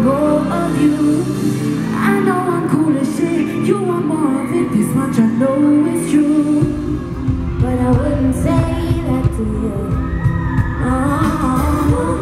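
Live pop concert music: women singing over the music, with a deep bass beat coming in about halfway through.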